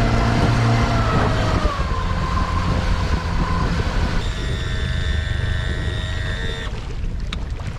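Outboard motor of a Bass Tracker boat running at speed, with wind rushing over the microphone; the engine's pitch falls about a second in. A steady high whine joins in at about four seconds and cuts off near seven, leaving mostly wind.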